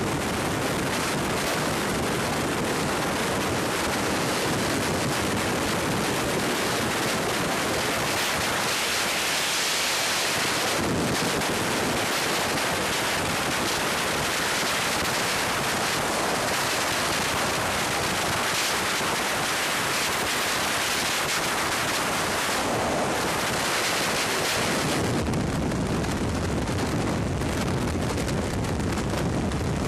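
Freefall wind rushing over the camera microphone: a steady, loud rush of noise. It grows brighter around eight to eleven seconds in. About twenty-five seconds in it turns deeper and duller.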